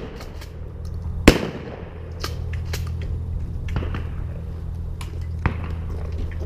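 A shotgun firing once at a flying clay target about a second in, a sharp report that echoes away. It follows a first shot just before and is the second shot at the same target. A few fainter sharp cracks come later over a steady low rumble.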